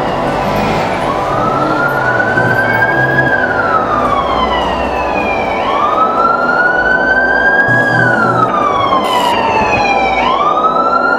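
A wailing siren, each slow rise and longer fall taking about four to five seconds, over steady background noise; it cuts off suddenly at the very end.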